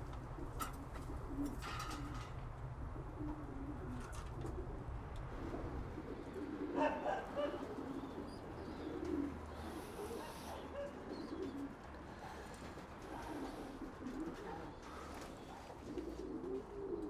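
Racing pigeons cooing softly over and over, with a brief sharper sound about seven seconds in.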